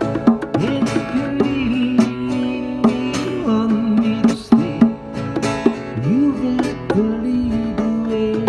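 Instrumental music: a plucked string instrument playing sliding, bending notes over a percussive beat.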